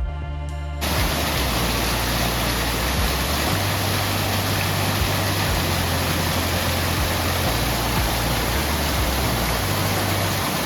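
Waterfall rushing: a loud, steady roar of falling water cuts in about a second in, after a brief stretch of music. Low bass tones carry on underneath.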